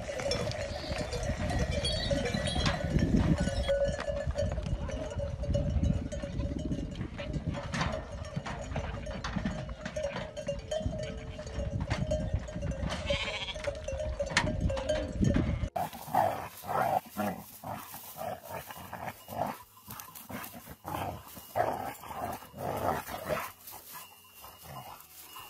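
Flock of sheep bleating as it moves, with a low rumble under it that cuts off abruptly about two thirds of the way through, after which separate bleats come closer and choppier.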